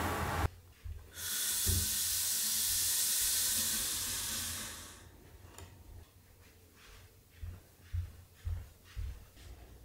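A steady hiss lasting about four seconds that fades out, followed by soft footsteps on the floor, about two steps a second.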